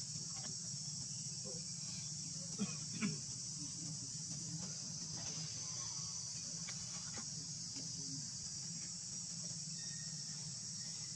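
Steady high-pitched insect chorus, with two short, louder sounds close together about two and a half and three seconds in.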